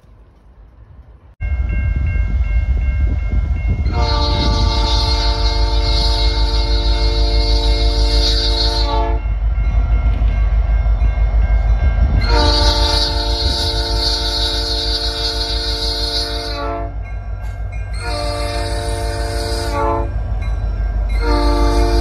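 Horn of CN's EMD SD75I locomotive 5641 sounding the grade-crossing signal (long, long, short, long) as several steady chord tones over the locomotive's running diesel engine. The engine rumble cuts in abruptly about a second and a half in, and the last long blast runs on past the end.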